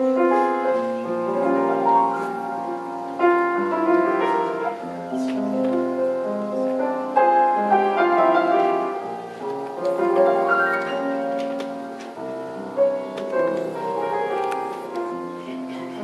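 Solo piano playing the slow introduction of an old Russian romance: sustained chords and a melody line, with no voice.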